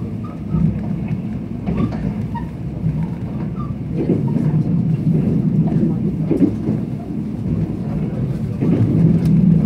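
Mugunghwa-ho passenger train running, heard from inside the carriage: a steady low rumble of wheels on the rails, growing louder near the end.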